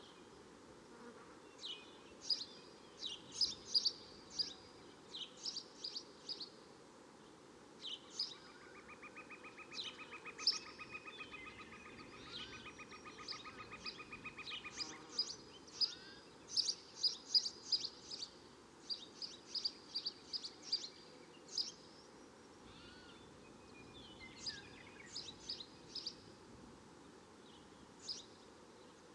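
Swamp and jungle ambience: birds calling in short, high, repeated chirps throughout over a faint steady background hiss. From about 8 to 15 seconds a lower, rapid pulsing trill runs underneath.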